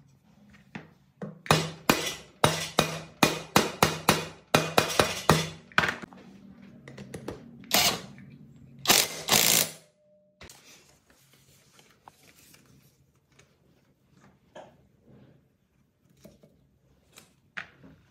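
Flywheel of a small four-stroke generator engine being fastened onto its crankshaft with a hand tool: a quick run of sharp metallic clicks, about three a second, for several seconds, then two longer rattling bursts. After that there are only faint small handling clicks.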